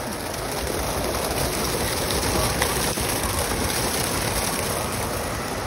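Steady rush of water pouring from an overhead water-park spout and splashing into the pool.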